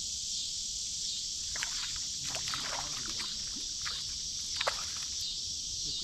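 Evening insect chorus, a steady high-pitched drone with a slight pulse, with a few short falling chirps over it, the sharpest near the end.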